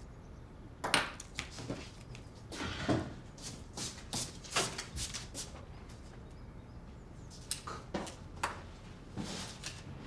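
A run of light taps and paper rustles: sticky notes being handled and pressed by hand onto a refrigerator door. The taps come in two clusters, with a short gap around the middle.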